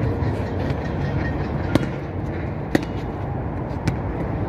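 A basketball bouncing on a concrete court: three sharp knocks about a second apart, over a steady low rumble.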